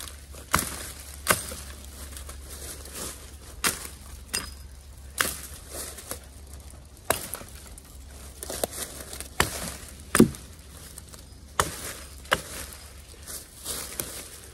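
Adler Rhineland hatchet with a C60 steel head chopping branches off a felled small tree to de-limb it. Sharp chops come at an irregular pace, roughly one a second, with one harder strike about two-thirds of the way through.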